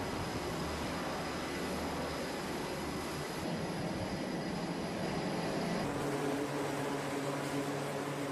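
Jet engine noise on an aircraft carrier's flight deck, a steady loud rush. About six seconds in, it changes to a steadier hum with a few held tones, with an F/A-18 Super Hornet on the catapult.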